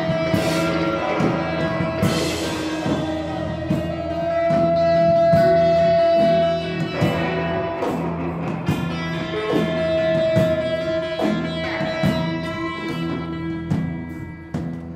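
Live rock band playing an instrumental passage, with guitar and drums. A long held high note swells in and out three times over the steady beat.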